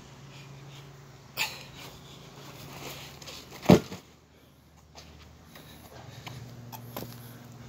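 A sharp, forceful exhale, then a loaded rucksack dropped onto a concrete driveway with a heavy thud about halfway through, followed by further hard breaths.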